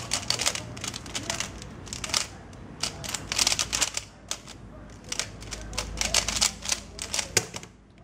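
A Moyu Weilong 3x3 speedcube being turned fast during a timed solve: a dense clatter of plastic layers clicking in quick bursts with short pauses. About seven and a half seconds in, one sharp tap on the laptop keyboard stops the timer at the end of the solve.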